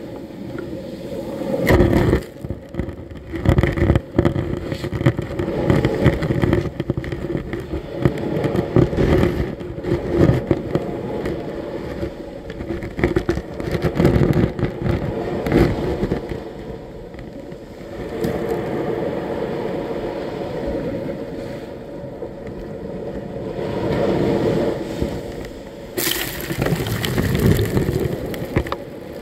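Small sea waves breaking and washing up over sand at the waterline, with foam hissing, heard close to the microphone with a heavy rumble and much crackling. The wash swells and falls in surges, and near the end a wave breaks right at the microphone in a louder, brighter splash.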